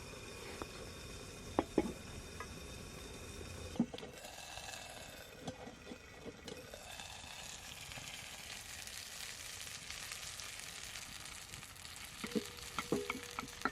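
Food sizzling in a skillet over a campfire, a steady frying hiss. There are a few sharp clicks early on, and a quick run of clicks and taps near the end.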